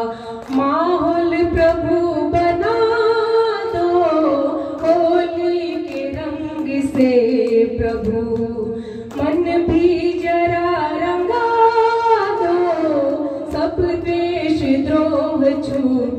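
A woman singing a Hindi Holi bhajan into a microphone, drawing out long held notes that glide from pitch to pitch, with hand-clapping keeping time.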